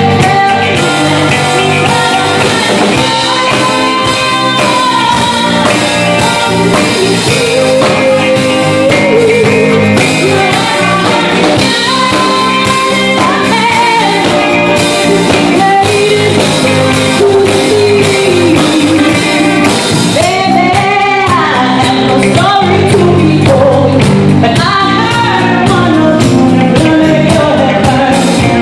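Live rock band playing with a woman singing lead, backed by electric guitars, drums and saxophone, loud and continuous.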